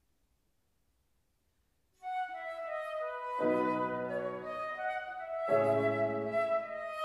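About two seconds of near silence, then a flute starts a melody with a grand piano. Piano chords come in twice beneath the flute line, the first about a second and a half after the flute begins.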